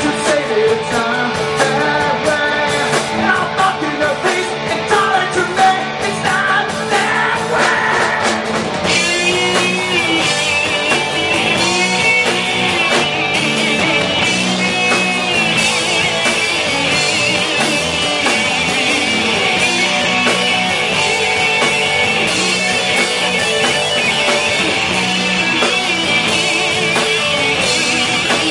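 A live rock band playing a song, with guitar and drums; about nine seconds in a wavering high melody line comes in over the band.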